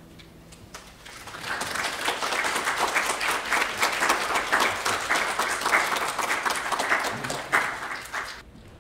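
Audience applauding: the last piano notes die away under a few scattered claps, which swell into steady clapping about a second in and stop suddenly near the end.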